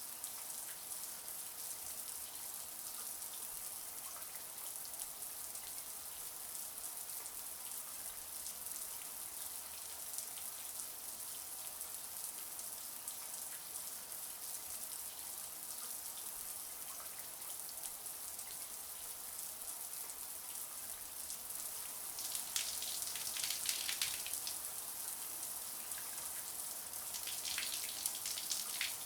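Shower running: a steady spray of water hissing down, with louder splashing for a couple of seconds about three-quarters through and again near the end.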